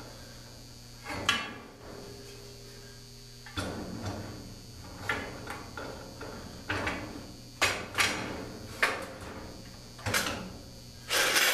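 Metal axle rod being pushed through the holes of a metal garden cart's undercarriage and its spacers: irregular metallic knocks and scrapes, about a dozen, with a longer, louder scrape near the end.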